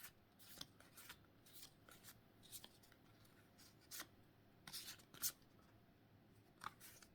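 Pokémon trading cards being slid and flipped through by hand: about a dozen faint, short swipes of card against card, irregularly spaced.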